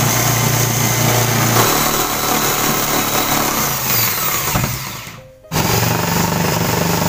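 Jigsaw running with its blade cutting through a wooden countertop: a loud, steady buzz over a low motor hum. The sound fades and stops for a moment about five seconds in, then starts again at full level.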